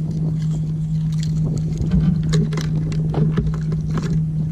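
A boat's motor humming at one steady pitch, with scattered short clicks and taps over it.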